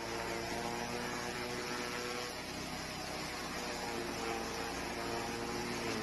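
Small petrol engine driving a corn-straw chaff cutter, running with a steady hum; its pitch dips slightly about two seconds in and again near the end.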